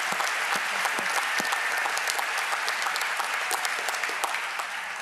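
Audience applauding: many hands clapping in a dense, steady stream, beginning to thin out near the end.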